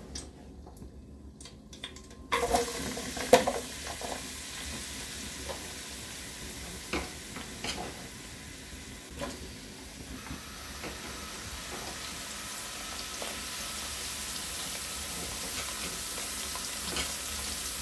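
Sliced onions going into hot ghee and oil in an aluminium pot about two seconds in, setting off a steady sizzle, with scattered clinks against the pot. The sizzle grows stronger in the second half.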